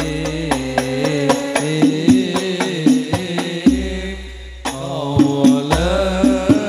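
A banjari hadroh ensemble performing sholawat: rebana frame drums struck in a steady rhythm under a man's sung chant, over a low sustained bass. The music drops away briefly just past the middle, then comes back in.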